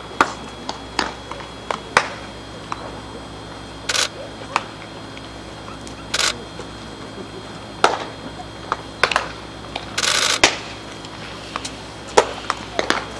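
Baseballs popping into leather gloves during a game of catch: sharp single smacks every second or few, the first as the ball reaches the near glove right at the start. A few short, hissier clicks fall among them, the longest about ten seconds in.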